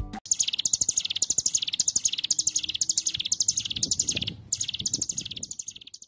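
Ciblek gunung, a prinia, singing its 'ngebren' song: high-pitched 'shot' notes fired close together and fast, in quick rattling bursts one after another, stopping right at the end.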